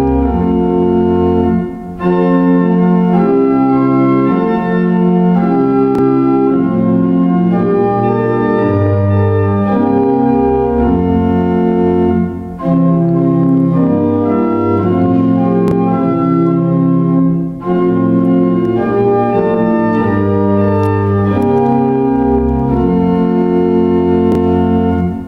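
Church organ playing a slow piece in sustained full chords that change every second or so, with three brief breaks between phrases.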